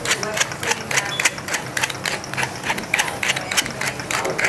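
Wooden salt mill twisted by hand, grinding in a quick, even run of clicks, about four a second.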